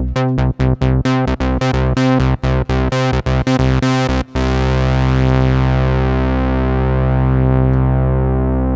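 Moog Prodigy analog synthesizer playing a fast run of short, separated notes, about four or five a second. About four seconds in it settles on a long held low note whose bright upper edge slowly dulls.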